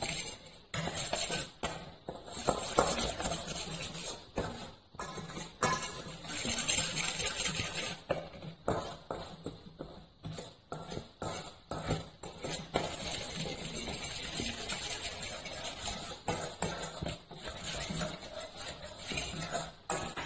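A fork stirs and scrapes dry spices around a stainless steel mixing bowl: rapid metal-on-metal scraping and clinking in spurts, with short pauses between them.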